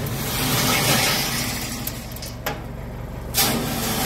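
Shovelfuls of rocky dirt thrown onto a steel expanded-metal grizzly screen, rattling and sifting through the mesh into the trailer below, twice, the second about three and a half seconds in. A tractor engine runs steadily underneath.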